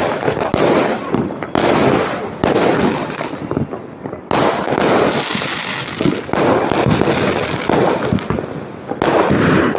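Fireworks and firecrackers going off without pause: dense crackling and bangs, with fresh volleys breaking out several times.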